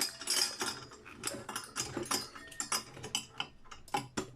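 Irregular clinks and rattles of metal parts as a brass light fitting is loosened and taken apart by hand, with a few sharper knocks just before the end.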